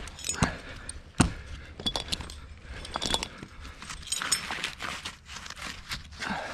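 Metal climbing hardware jingling and clinking, with irregular knocks; the loudest knock comes about a second in.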